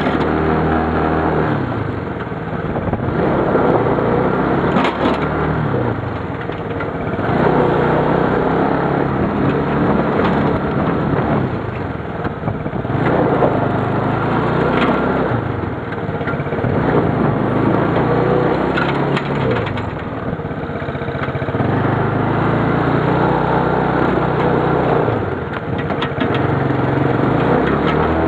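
Roketa 250cc ATV engine running and revving up and down every few seconds as it pushes snow with a front plow blade. The blade scrapes and crunches through snow and gravel, with scattered cracks.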